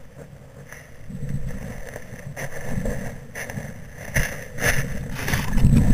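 Wind rumbling on the microphone of a model rocket's onboard camera lying in dry grass, growing louder toward the end. A few knocks and rustles from about four seconds in, as the camera is about to be picked up.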